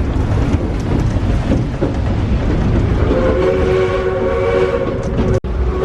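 Rumble and rattle of the park's steam train heard from aboard, then about three seconds in the locomotive's whistle begins sounding a steady chord of several notes and holds it.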